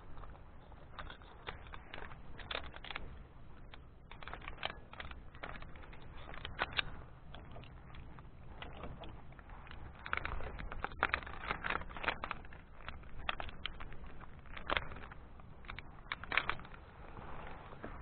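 Irregular clicks, taps and light rattles of handled climbing gear, metal lanyard carabiners on the safety line, over a low rumble of wind or rubbing on a body-worn camera. The clicking grows busier about ten seconds in.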